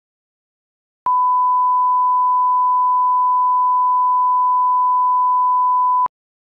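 Steady 1 kHz line-up tone, a single pure pitch about five seconds long that starts about a second in and stops abruptly. It is the broadcast reference tone that accompanies colour bars, used to set audio levels before a commercial.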